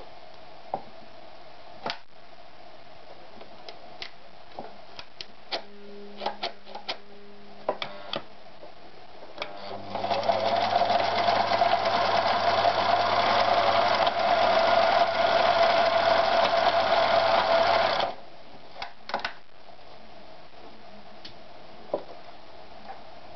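Privileg TopStar 796 Super Automatic sewing machine stitching through denim in one steady run of about eight seconds, starting a little under halfway through. Scattered clicks and knocks come before and after the run, with a brief low hum shortly before it.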